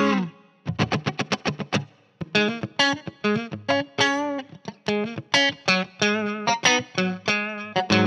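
Stratocaster-style partscaster electric guitar with single-coil pickups, played through a relatively clean amp tone. A chord is cut off at the start, then comes a quick run of short, choppy muted plucks, then strummed chords and single notes, some with vibrato.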